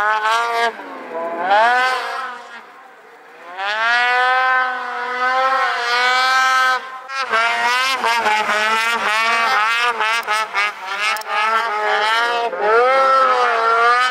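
Snowmobile engine revving hard in deep snow, its pitch climbing and falling with the throttle. It eases off briefly about two seconds in, then runs in a string of quick throttle blips around the middle.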